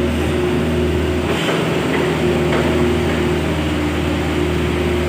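U-50 mini excavator's diesel engine running steadily while it digs soil, with a brief knock about a second and a half in.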